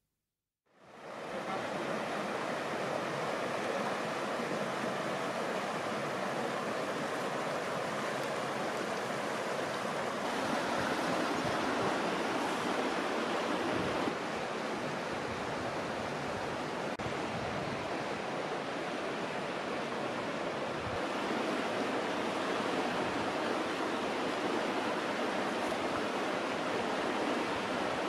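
A rocky mountain river flowing, a steady rush of water over stones that fades in about a second in.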